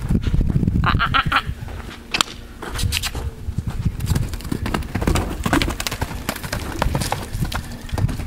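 Horse's hooves on the soft dirt of a round pen as it trots and lopes along the wall, a loose run of low thuds and scattered sharp clicks, with a short high-pitched call about a second in.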